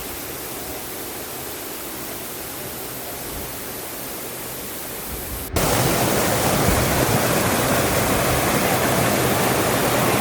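Waterfall rushing, a steady dense noise of falling water. About five and a half seconds in it cuts abruptly to a much louder, closer rush.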